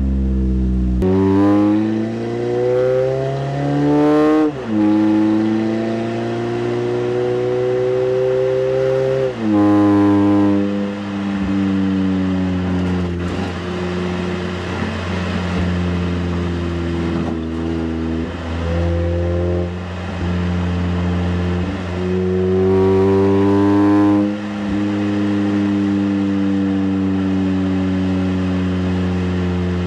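Toyota Camry four-cylinder engine running through a Magnaflow 19494 cat-back exhaust under acceleration. Its note rises in pitch, then drops sharply at upshifts: about four seconds in, near ten seconds and again around twenty-four seconds, with steady cruising between.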